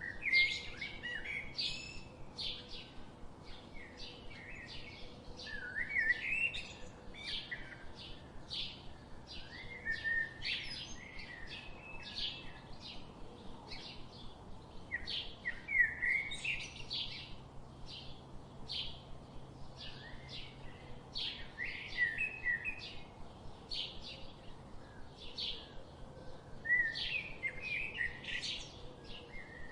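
Several small songbirds chirping, with quick short high notes several times a second and some downward-sliding phrases.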